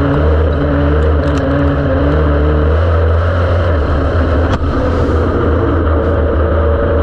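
Dirt-track race car engine running hard, heard loud from inside the cockpit, its note shifting about a third of the way through. There is a single sharp click about two-thirds of the way in.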